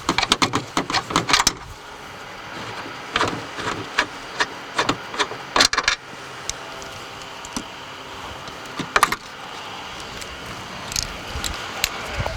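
Irregular metallic clicks and clatter of tools and seat belt hardware being handled, in quick clusters near the start and again a few seconds in, with a single sharper knock later.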